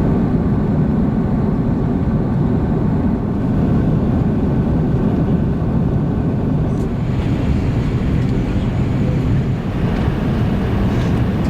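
Steady rumble of an Airbus A340-600's engines and airflow, heard inside the passenger cabin, with a little more hiss from about seven seconds in.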